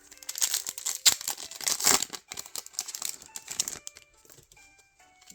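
A foil Pokémon booster pack being crinkled and torn open: a run of crackling and ripping that stops about four seconds in. Light background music plays throughout.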